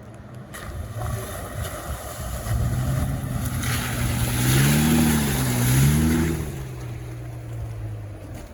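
Jeep Wrangler's engine running and revving up twice in the middle, the pitch rising and falling each time as it drives over rough off-road ground. A rushing noise rides on top while it revs.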